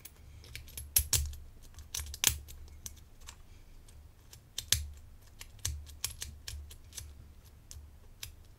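Small, irregular metal clicks and taps from a pick worked in the keyway of a Bowley Rotasera disc detainer lock, turning its discs to clear them, with soft handling bumps as the lock cylinder is held and turned in the fingers.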